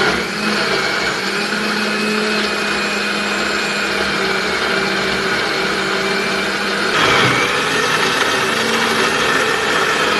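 Kenstar mixer grinder's motor running steadily, blending a thick milk-and-banana protein shake in its glass jar. Its tone brightens about seven seconds in.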